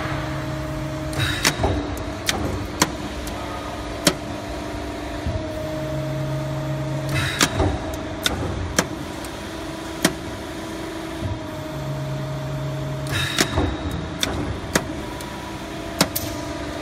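CNC hydraulic press brake running: a steady machine hum, with a deeper tone that comes in for a second or two about every six seconds and sharp clicks scattered throughout.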